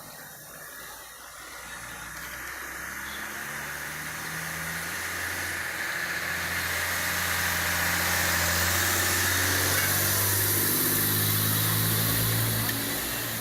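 A motor vehicle's engine coming closer, growing louder over several seconds and running close by, then dropping off near the end.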